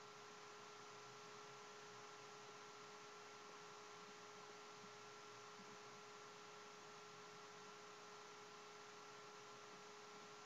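Near silence: a faint steady hiss with a thin, steady electrical hum.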